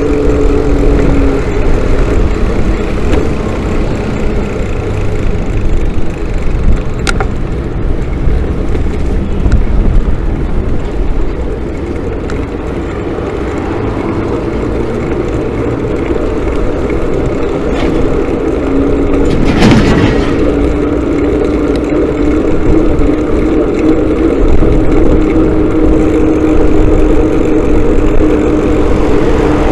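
Motorcycle engine running at a steady speed while riding. Its pitch drops slightly near the start and rises again about eighteen seconds in, with a brief rush of noise about twenty seconds in.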